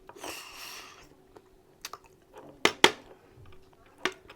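Close-miked eating sounds from someone eating mutton curry: a short hiss in the first second, then a few sharp, wet mouth clicks of chewing, two in quick succession in the middle and one more near the end.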